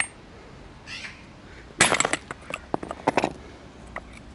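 Hammer strikes on a TZA car water pump being knocked apart: a cluster of loud, sharp metal impacts about two seconds in and another about three seconds in, with lighter clinks around them.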